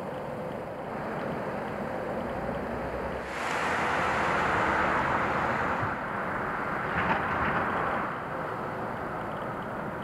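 A vehicle passing on the road, its tyre noise rising sharply about three seconds in, holding, and falling away near eight seconds, over a steady outdoor rush.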